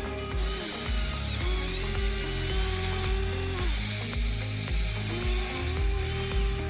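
1/14-scale RC excavator's electric motors and gearboxes whining as the arm and bucket work: the whine rises, holds for a second or two and falls away, three times, with a gritty gear chatter. Background music plays underneath.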